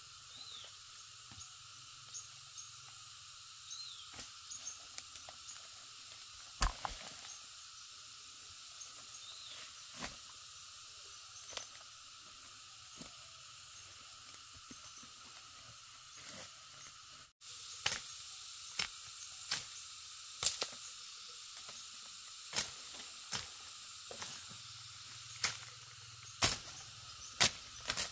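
A steady, high-pitched insect drone with a few short bird chirps, over soft rustling and crunching of soil and dry leaves underfoot and under hand. From about two-thirds of the way in, a knife chops dry fern stems in sharp cracks roughly once a second.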